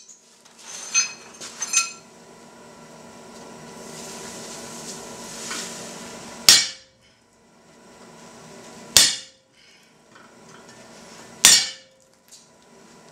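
Hammer striking a slitting chisel driven into a red-hot steel bar on the anvil: three single blows about two and a half seconds apart, each ringing briefly. A few light metal clinks sound in the first couple of seconds.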